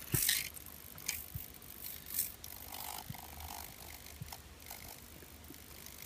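Handling noise from a small quadcopter frame being tilted and moved by hand on a desk: a short scrape and rustle at the start, then a few light clicks and taps, with a brief faint buzz a little before the middle.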